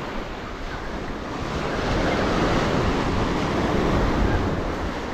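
Small surf waves breaking and washing up a sandy beach, with wind on the microphone. The wash builds about two seconds in and eases off near the end.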